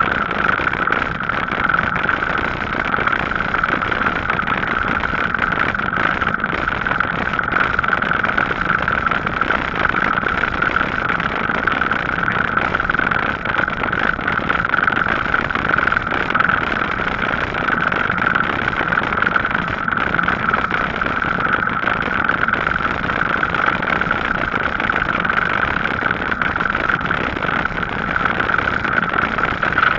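Riding noise of a Gazelle Paris C7 e-bike on a tarmac cycle path: a steady rushing noise with a constant hum that never changes.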